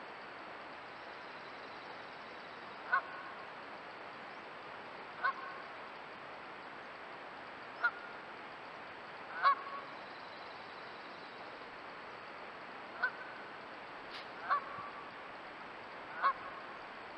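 Goose honking off and on: seven short honks a couple of seconds apart over a steady hiss.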